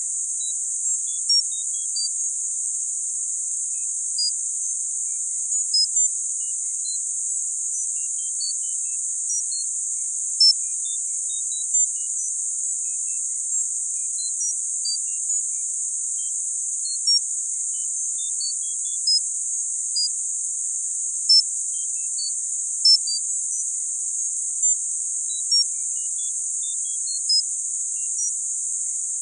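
Synthesized tinnitus-masking sound: a steady, high-pitched band of hiss, with short high beeps scattered at irregular moments, roughly one or two a second.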